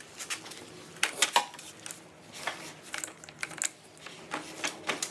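Chute-control joystick on a Troy-Bilt Vortex 2890 snowblower being worked back and forth, giving irregular plastic-and-metal clicks and knocks as fresh white lithium grease is worked into its swivel points. The loudest clicks come about a second in.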